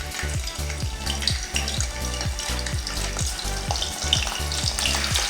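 Dried fish frying in hot oil in a pan, a steady crackling sizzle, over music with a regular low beat.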